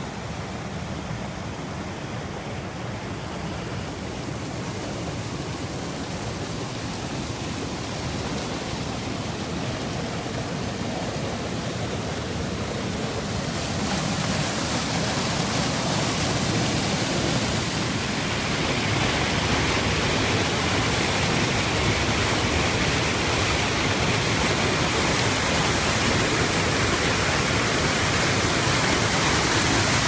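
Small creek cascade of water pouring between boulders, a steady rush that grows louder and brighter about 14 seconds in and again near 19 seconds.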